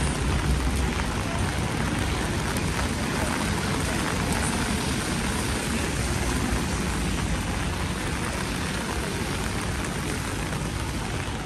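Heavy rain falling steadily on a wet city street, with a low rumble of road traffic underneath.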